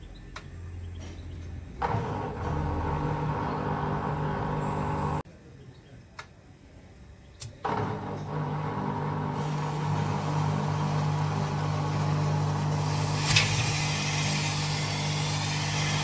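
Beko washing machine running with a steady low hum. From about halfway a volcano fountain firework spraying sparks inside the drum adds a loud, rising hiss, with one sharp crack a few seconds before the end.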